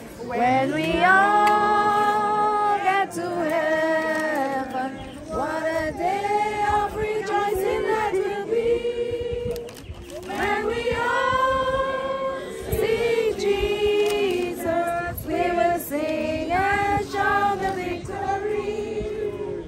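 A crowd of mourners singing a hymn together, slow phrases of long held notes with a short break about ten seconds in.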